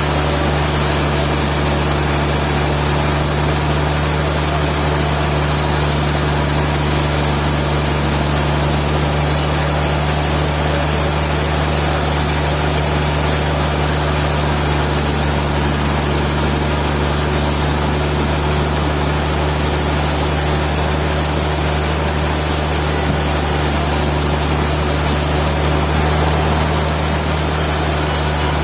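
Sawmill machinery running steadily, a constant low engine hum under an even hiss, with no change in pitch or level.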